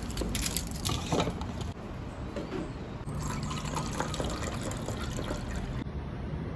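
Liquid being poured into a container, with a few short handling clicks in the first second or so.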